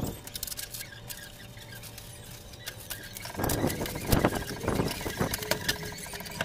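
Clear plastic packaging wrap crinkling and crackling as it is pulled and torn off a vertical blinds package, loudest for a couple of seconds past the middle.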